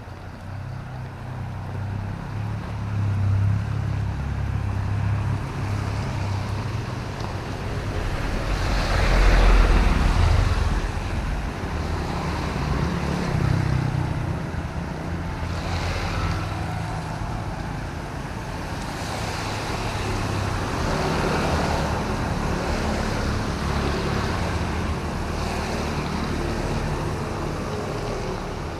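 City road traffic in drizzle: a steady low engine rumble, with vehicles passing one after another and their tyres hissing on the wet road, the loudest pass about a third of the way in.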